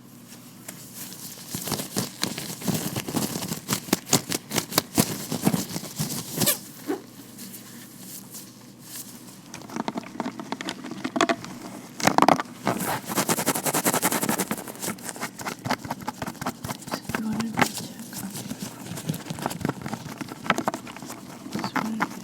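Vinyl-latex gloved hands rubbing and tapping close to the microphone: a dense run of crackling clicks and taps that starts about a second and a half in, with a few louder strokes.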